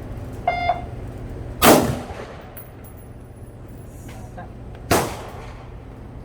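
Two rifle shots about three seconds apart, each a sharp crack with a short ringing tail, from a Ruger 5.56 rifle being fired while it is zeroed.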